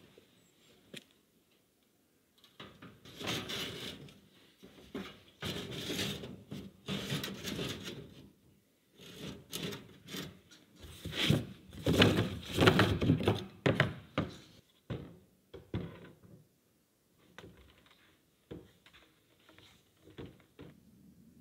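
An IBC tote, a plastic water tank in a steel cage, scraping and knocking against concrete blocks as it is shoved into place, in a run of noise that is loudest a little past the middle. Scattered light knocks follow.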